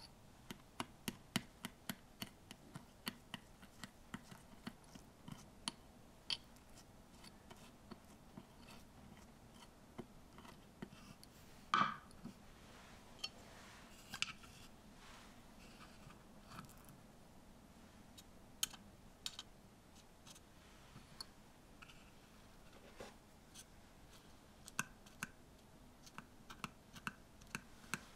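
A tiny metal spoon clicking and scraping against a small glass bowl as dark cookie crumbs are stirred, then light taps and clicks as the crumbs are pressed into a tiny mould. The clicks come quickly in the first few seconds and again near the end, with one louder knock about twelve seconds in.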